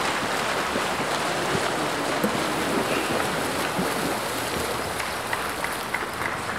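Steady splashing of water polo players swimming across the pool, heard as an even wash of water noise.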